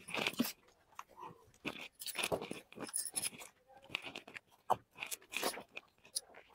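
Close-up chewing of mouthfuls of spicy instant noodles, in irregular short bursts with small clicks.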